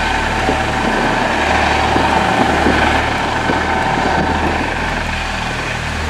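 Coast Guard MH-65 Dolphin helicopter hovering, a steady turbine whine over the rotor noise, easing slightly near the end.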